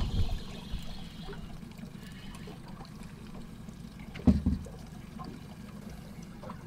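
Water lapping against an aluminium boat hull while a hooked fish is reeled in, with a short, loud double splash about four seconds in as the fish is swung out of the water.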